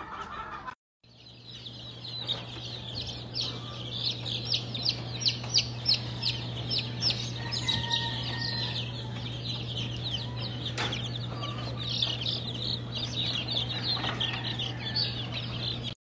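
Young chicks peeping nonstop in a brooder: many rapid, high cheeps overlapping, over a steady low hum. One sharp click comes near the middle.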